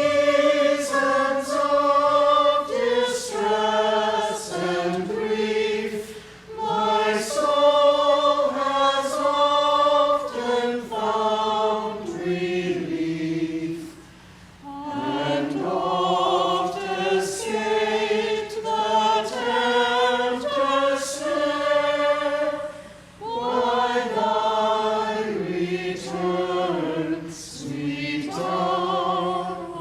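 A church choir singing, phrase by phrase, with short breaks between phrases, the longest about twelve seconds in.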